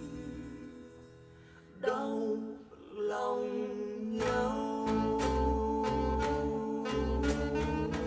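Recorded music played through SB Acoustics SBE C-6 bookshelf speakers: one song's last notes fade to a brief lull, then just under two seconds in a new instrumental intro begins with sustained melody and bass, and a regular drum beat enters about four seconds in.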